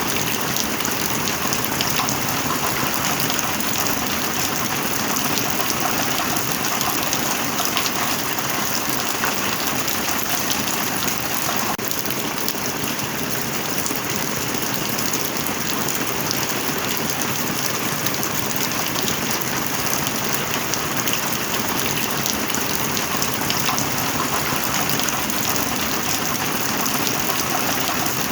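Steady heavy rain, a dense, even patter of many drops.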